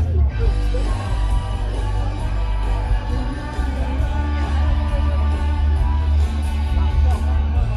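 Rock song with singing, played loud with heavy bass.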